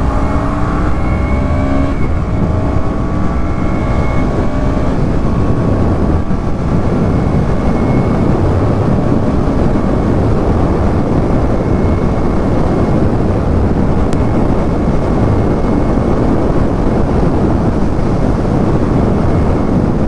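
Motorcycle engine pulling harder with rising pitch for the first few seconds, then running steadily at cruising speed. Heavy wind rush on the microphone covers most of it.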